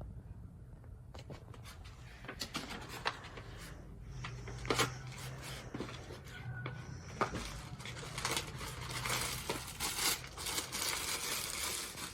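Rustling and crinkling of clothes and their packaging being handled, with scattered clicks and taps, thickening into continuous rustling in the last few seconds. A low steady hum lies underneath.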